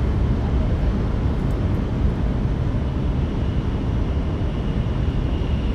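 Interior running noise of an N700S shinkansen: a steady low rumble of wheels, track and air rushing past. A faint high steady whine comes in about halfway through.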